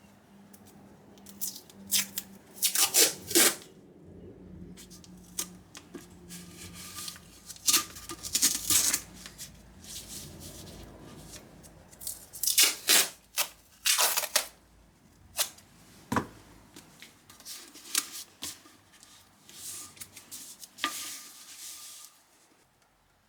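Wet-sanding by hand with 500-grit wet-or-dry paper on a rubber sanding block: short, irregular scraping strokes with brief pauses, flatting the paintwork until the black guide coat is gone.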